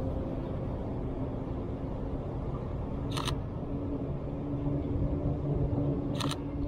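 Mirrorless camera shutter (Sony A7RIII) firing twice, about three seconds apart, each a quick double click, over a steady low rumble of city traffic.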